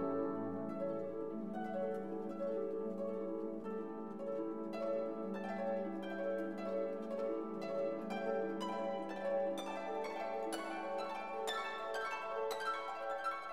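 Instrumental background music: quick plucked notes, harp-like, over a held lower note, growing busier in the second half.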